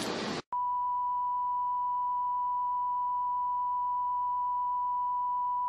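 A brief burst of hiss, then after a short gap a steady single-pitched test tone: the reference tone that plays over the colour bars once a TV station has signed off the air.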